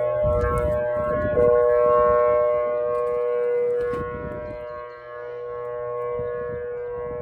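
Civil defense outdoor warning sirens sounding a steady two-note chord during their routine monthly test, swelling and fading in loudness.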